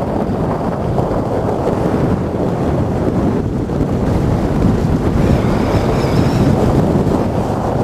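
Strong wind rushing over the microphone at speed on a land yacht, a loud steady buffeting rush, with a faint high whistle wavering in briefly around the middle.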